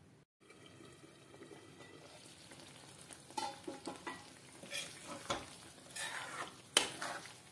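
Thick mushroom masala gravy sizzling on a low flame in a metal kadhai. From about three seconds in, a steel spoon stirs through it, scraping and clinking against the pan, with the loudest scrape near the end.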